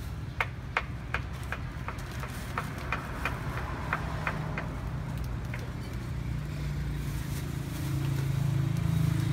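Low, steady rumble of a motor vehicle engine, growing louder near the end. Over it, in the first half, a quick series of light clicks and taps.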